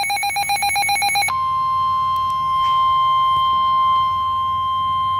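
NOAA Weather Radio alert tones: a loud warbling burst of digital data tones (the SAME header) that stops about a second in, giving way to the steady 1050 Hz warning alarm tone that marks a new warning.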